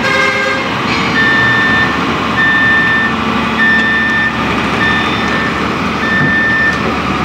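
Travel alarm of a Hyundai Robex crawler excavator beeping in a steady on-off rhythm, about one beep every second and a quarter, starting about a second in, over the running machine as it tracks onto a lowboy trailer.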